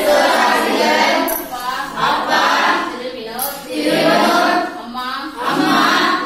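A group of women's voices singing a prayer together, in phrases of a second or two with short breaks between them.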